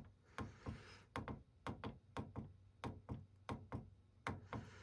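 A rapid, even run of sharp clicks, about four a second, from a fire alarm panel's acknowledge button being pressed over and over to acknowledge its trouble conditions.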